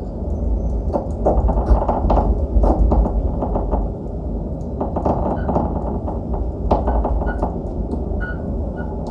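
Experimental noise performance: a dense, deep rumbling drone with many scattered crackles and clicks over it, a little louder in the first few seconds.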